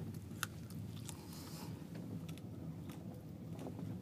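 Faint rustling and a few small clicks from a phone being handled, over a low steady rumble.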